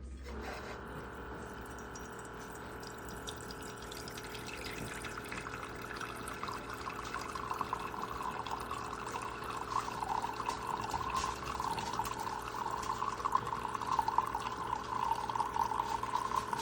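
Keurig K-Elite single-serve coffee maker brewing: its pump hums steadily, starting about half a second in, while hot coffee streams into the cup. The pour grows louder and gurgles more from about six seconds in.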